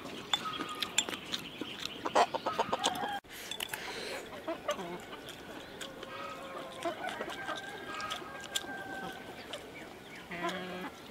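Chicken clucking, over the small clicks and chewing of a person eating from a bowl with chopsticks.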